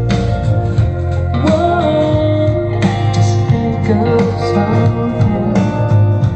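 Guitar-led recorded music played through a vintage Electro-Voice Coronet two-way loudspeaker.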